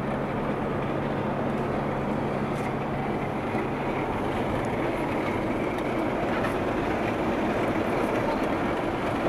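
Steady cabin noise of a Renault van driving on an asphalt road: engine running and tyres rolling. A low steady hum drops away about four seconds in.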